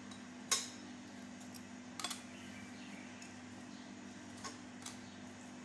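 A few short clicks and clinks of a table knife and mugs on a granite counter as bread is spread with butter: the loudest about half a second in, a double click about two seconds in, and two lighter ones near the end, over a steady low hum.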